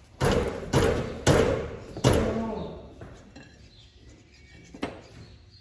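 Four heavy knocks about half a second apart, each ringing briefly, then one lighter knock near the end.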